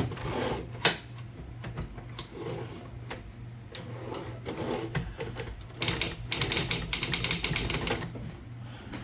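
Manual typewriter being typed on: a few separate key clacks, then about two seconds in the second half of a fast run of keystrokes, the loudest part. A steady low hum runs underneath.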